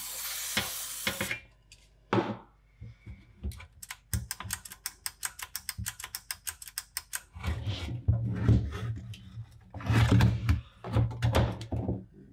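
A spray can of contact cleaner hissing for about a second. Then a switch clicking rapidly, several times a second for a few seconds, as it is worked to clear a crackling fault. It ends with heavy knocks and thuds as the metal-cased unit is handled and turned over.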